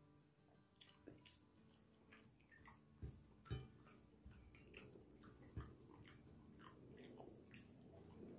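Faint sounds of eating rice and beef rendang by hand: chewing and small clicks of fingers working the rice on the plate, with soft thumps about three seconds in, half a second later, and again near six seconds.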